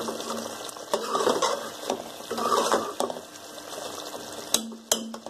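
Metal spoon stirring a thick yogurt chicken curry in a steel pot, with irregular scrapes and clicks of the spoon against the pot as a freshly poured ghee tempering is mixed in.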